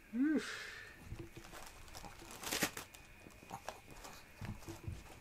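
A foil balloon crinkling and rustling in scattered crackles as a Chihuahua noses and bites it. A short rising-then-falling whine sounds right at the start.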